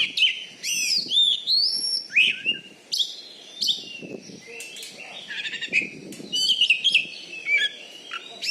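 Oriental magpie-robin (kacer) singing a varied song of loud whistled phrases, with quick rising and falling notes and rapid runs one after another, almost without a pause.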